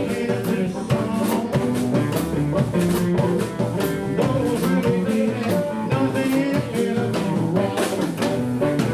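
Live vintage blues band playing an up-tempo rock 'n' roll number: a man singing over hollow-body electric guitar, double bass and a drum kit keeping a steady beat.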